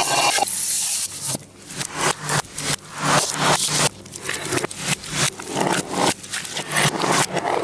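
A hand scraping and squishing through a heap of cooked chicken, eggs and food scraps on a plate, played in reverse: a run of irregular scrapes and rustles with short pauses.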